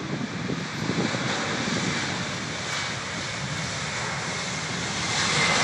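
Airbus Beluga's twin turbofan engines running at high power as the aircraft moves fast along the runway. It is a steady rushing jet noise with a faint whine, growing louder near the end.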